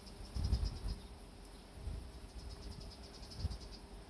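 Faint, high-pitched insect chirping in quick, even pulses, with gusts of wind buffeting the microphone in low rumbles.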